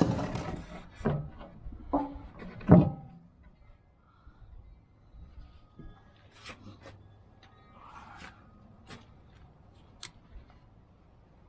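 A few clunks and knocks in the first three seconds, then faint scattered clicks and taps.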